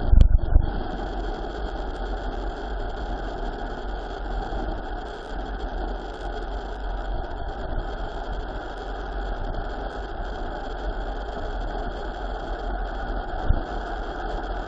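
Steady rush of wind over the microphone with tyre rumble from a mountain bike descending fast downhill, with low buffeting gusts just after the start and again near the end.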